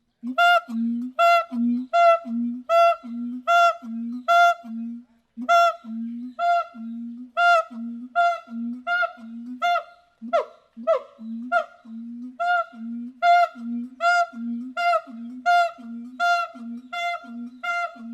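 A monkey calling close by: a long run of short hooting calls, about two a second, with a brief uneven stretch about ten seconds in.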